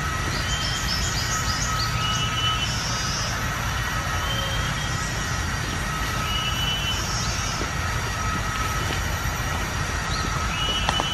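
Tropical forest ambience: short high-pitched animal calls repeating every second or two, with a quick run of short high notes about half a second in, over a steady low rumble.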